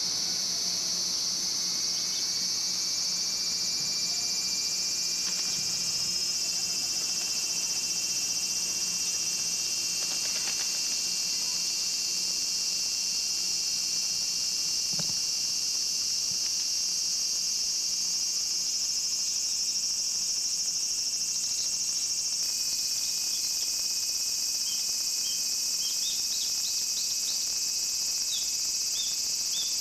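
Steady, high-pitched buzzing of a cicada chorus. A few faint short chirps come near the end.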